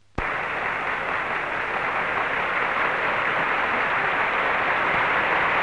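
Large theatre audience applauding, starting suddenly just after the start and continuing steadily.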